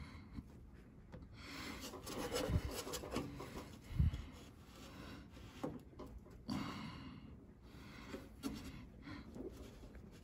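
A rubber bumper being pushed and pried into its hole in a steel car door with a thin metal blade: faint, irregular rubbing and scraping, with two dull knocks about two and a half and four seconds in. The bumper is a stiff fit that won't seat.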